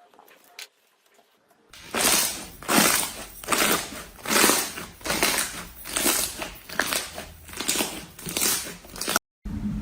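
Slime being squeezed and pressed by hand, a repeated squishing noise about one and a half times a second that starts about two seconds in and cuts off suddenly near the end.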